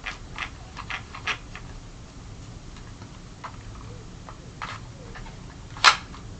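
Light plastic clicks and taps from a vacuum cleaner's parts being handled, with the motor off: a quick run of clicks at the start, a few scattered ones, then one sharper click near the end.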